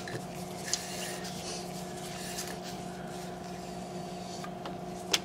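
A bore snake being pulled through the barrel of a CMMG MK9-T 9mm rifle: faint rubbing and handling noise, with a sharp click about a second in and a louder click near the end, over a steady low hum.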